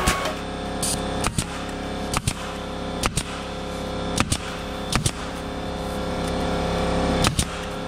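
Staple gun firing staples through marine carpet into the plywood edge: about seven sharp shots at uneven intervals, over a steady hum.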